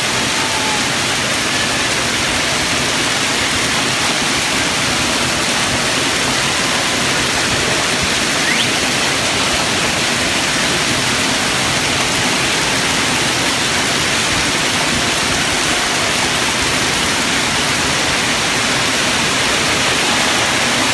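Rain falling steadily, a loud even hiss.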